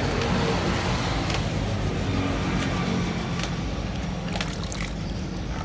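A steady low engine-like rumble from a running machine, with a few short sharp scrapes of a hand tool on a plastic motorcycle body panel.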